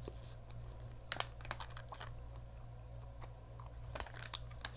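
Chewing dried fruit, with scattered light clicks and crackles from a clear plastic snack tray being handled, several close together about a second in and again near the end, over a low steady hum.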